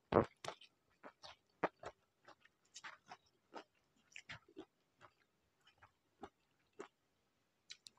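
Faint, close mouth sounds of someone eating corn vermicelli noodles and fresh vegetables by hand: irregular soft wet clicks and smacks of chewing, a little louder just at the start as noodles go into the mouth.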